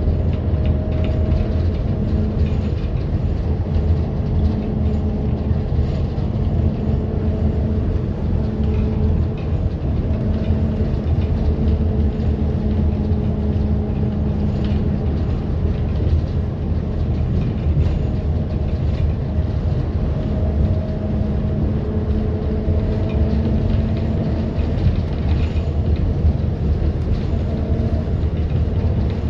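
Bus ride noise: a steady low rumble of engine and road, with a fainter hum that comes and goes every few seconds.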